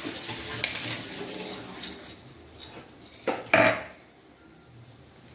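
Perforated metal spatula scraping and clinking against a metal kadai while stirring garlic, curry leaves and dried chillies, with two sharper knocks a little after three seconds in.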